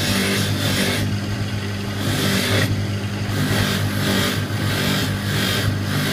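High-speed polishing motor running with a steady hum while its cloth mop, loaded with fine rouge, buffs a small silver lid; a hiss of cloth on metal swells and fades over and over as the piece is pressed to the mop and eased off.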